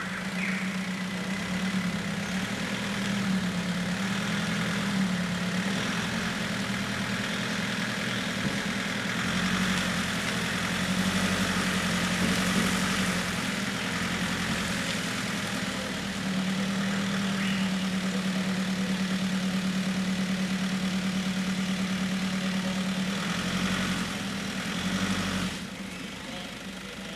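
A motor running with a steady droning hum that wavers slightly in pitch, then cuts out near the end, while a 4WD is being pulled through mud in a recovery.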